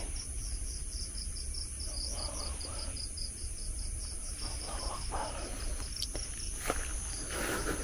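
Night insects: a cricket chirping in a fast, even pulse of about four chirps a second, over a steady high-pitched insect trill.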